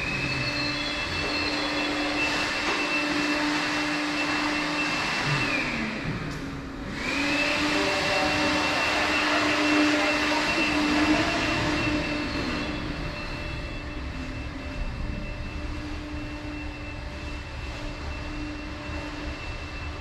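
A train running past, a steady high whine and a lower hum over a loud rush of noise. The whine falls in pitch about six seconds in and the sound dips briefly, then the whine and rush carry on and ease off slightly in the second half.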